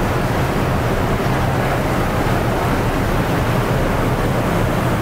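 A passenger boat under way on calm sea: a steady rush of water and wind with a low engine hum beneath, unchanging throughout.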